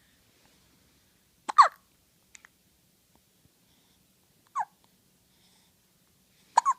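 Baby hiccuping: three short hiccups a few seconds apart, each with a quick drop in pitch, the middle one softer.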